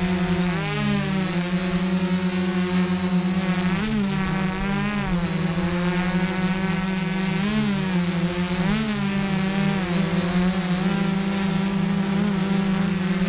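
DJI F550 hexacopter's electric motors and propellers running close by, a steady buzzing whine. Its pitch swoops up and down several times as the motor speeds change to steer the craft.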